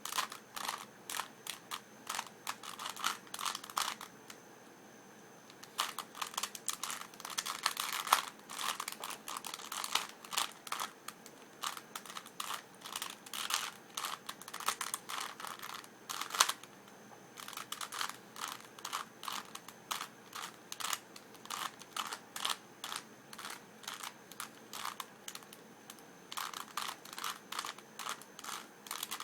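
Rubik's Cube being twisted rapidly by hand during a speed-solve: a fast, uneven run of plastic clicks and clacks from the turning layers. The turning stops for about two seconds after roughly four seconds, then carries on with only a brief pause a little past halfway.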